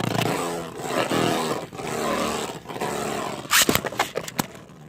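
A 3D-printed Beyblade and a Genesis Valkyrie Beyblade spinning and clashing in a plastic stadium: a steady whirring rasp broken by sharp clicks of impact, the loudest about three and a half seconds in.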